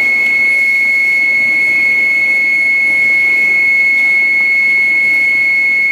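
Vertical glass cutting plotter running, giving off a steady high-pitched whine, one unchanging tone, over a low hiss.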